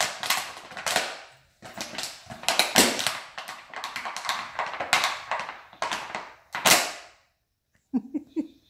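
A kelpie chewing an empty plastic bottle, the plastic crackling and crunching in quick irregular bursts, stopping about seven seconds in.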